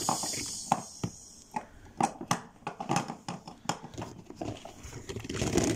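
Irregular light taps and clicks of hard plastic toy animal figures being handled and knocked on a tabletop.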